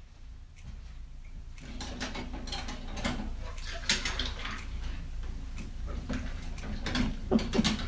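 Light mechanical clicking and clattering over a steady low hum, growing louder about a second and a half in.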